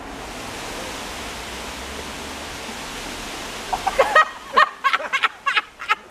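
A steady rushing hiss, then, about four seconds in, a bird's quick run of short, loud calls, about ten in two seconds.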